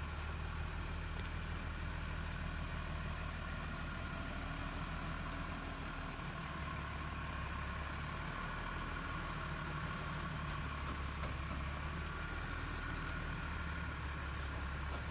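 A vehicle's engine running steadily at low revs while slowly towing a large wagon.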